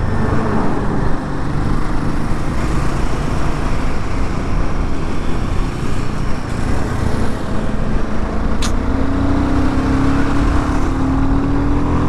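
Royal Enfield Himalayan 450's single-cylinder engine running at road speed, heard through a heavy, steady rush of wind and road noise on a helmet-mounted microphone. The engine note climbs a little over the last few seconds.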